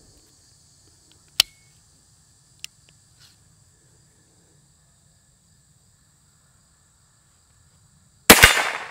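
Chiappa Little Badger single-shot break-action .22 LR rifle: a couple of sharp metallic clicks from handling the action, then near the end one loud shot, with a second sharp crack a split second later and a ring fading over about a second.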